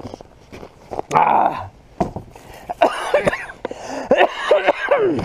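Several short whining calls that bend up and down in pitch, in two clusters in the second half, with a brief crinkle of a plastic bag about a second in.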